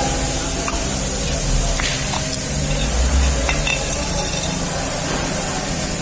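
Steady hiss with a low hum underneath and a few light, scattered clicks.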